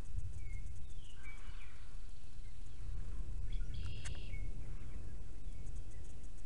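Steady low rumble of outdoor noise with small birds chirping in short calls, and a single sharp click about four seconds in.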